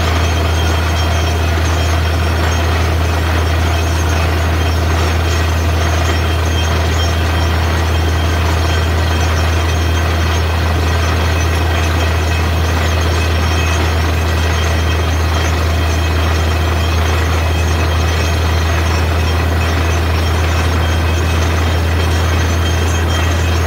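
Borewell drilling rig running steadily: a constant loud machine drone with a strong low hum that does not change.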